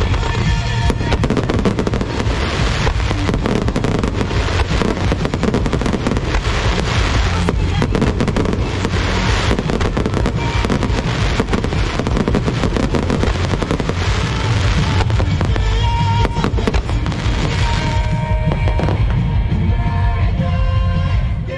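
A fireworks display going off in a dense, continuous barrage of bursts and crackling, with music playing under it. About 18 seconds in the bursts thin out and the music comes through more clearly.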